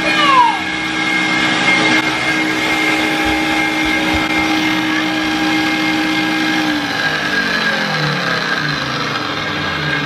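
Ninja countertop blender's motor running loudly at a steady pitch, then switched off about seven seconds in and spinning down with a falling pitch until it stops.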